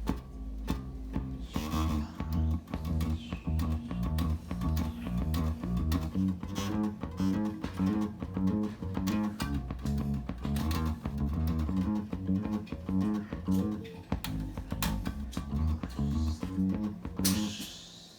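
Electric bass line of plucked low notes, played through a vintage tube compressor with its compression circuit working on the signal. The notes stop about a second before the end.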